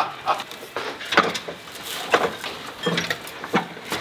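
Broom corn straw being worked at a wooden broom-winding bench: irregular knocks and rustling strokes, about six in four seconds, as the straw is handled and pressed.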